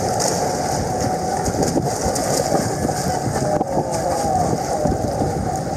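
Lake water sloshing and churning against a camera held at the water's surface while two dogs swim close by, heard as a steady, muffled rumble with little treble.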